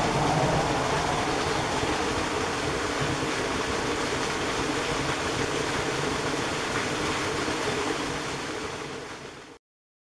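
Small waterfall on a forest stream: water falling and splashing on rock, a steady rushing noise that fades out near the end.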